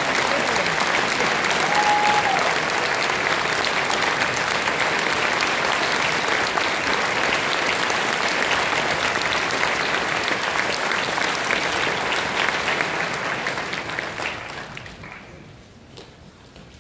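Concert audience applauding: steady clapping that dies away over the last few seconds.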